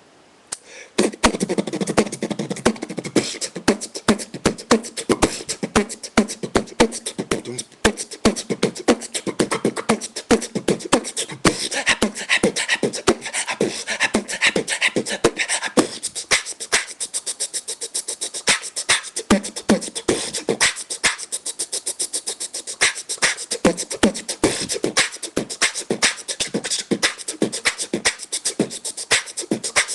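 A man beatboxing an old-school routine with his mouth: rapid percussive kicks, snares and clicks in a steady rhythm, mixed with hummed and voiced passages. It starts about a second in and breaks off briefly near eight seconds.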